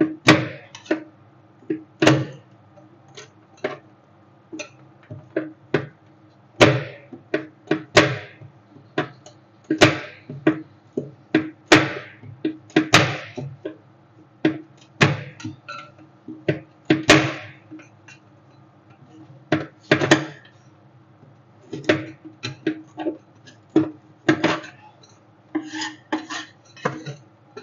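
Metal spatulas chopping and scraping on a rolled-ice-cream cold plate: irregular sharp taps and clacks with short scrapes between them, over a steady low hum.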